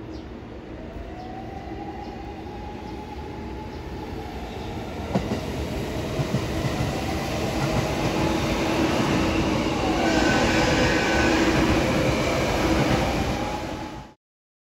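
JR Chūō Main Line electric trains passing close by and growing louder, with a motor whine that glides up and down in pitch and a few wheel knocks over rail joints. The sound cuts off suddenly near the end.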